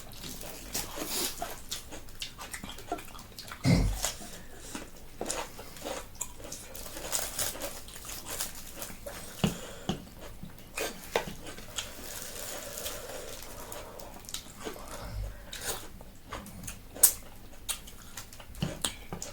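People eating at close range: irregular chewing and mouth noises with scattered small clicks, and a dull thump about four seconds in.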